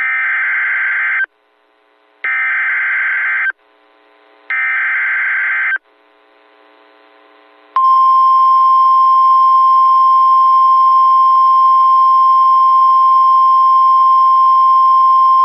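Emergency Alert System SAME header: three harsh, screechy data bursts about a second long, each a second apart. About eight seconds in comes the single steady 1050 Hz weather-radio attention tone, heralding a National Weather Service special marine warning.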